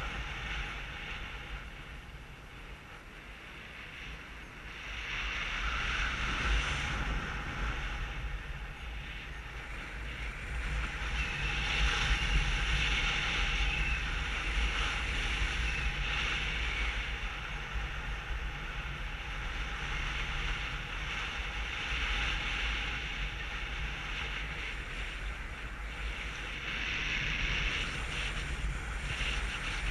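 Wind buffeting a GoPro microphone during paragliding flight: a steady rushing rumble that swells and eases, dipping a few seconds in and strongest about twelve seconds in.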